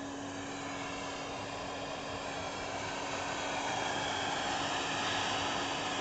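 Vacuum cleaner motor running steadily with a rushing hiss and a low hum, growing slightly louder toward the end.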